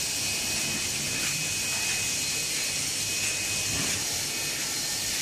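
Automatic plastic spoon-and-fork packing machinery running: a steady, even hiss with a thin high whine over it.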